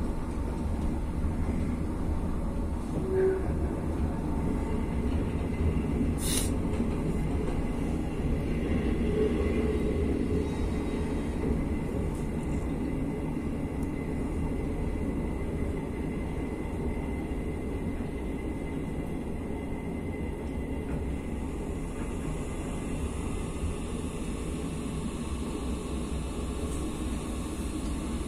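Steady low rumble of a train running, heard from inside the passenger carriage, with one short sharp click about six seconds in.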